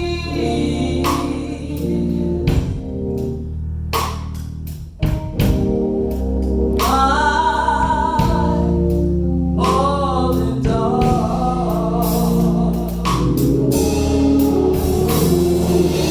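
Gospel song with a lead vocal and choir singing over a band with drums.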